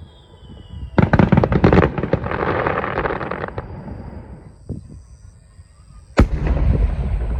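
Aerial fireworks bursting: a rapid cluster of loud bangs about a second in, then a dense crackle that fades away over a couple of seconds. Near the end another single loud bang is followed by more crackling and rumble.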